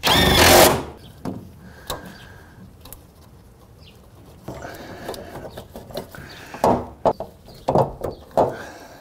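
An impact wrench hammers briefly, tightening a tie-down hook bolt under the car. It cuts off under a second in. After that come scattered clicks, knocks and short scrapes as metal parts are handled, several of them close together near the end.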